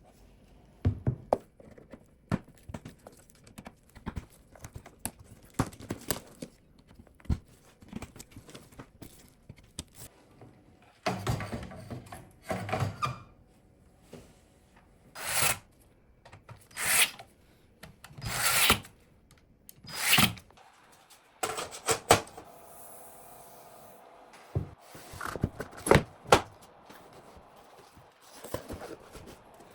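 Computer parts being handled and fitted during a PC build: scattered clicks and knocks, with several scraping, rubbing swells of about a second each in the middle.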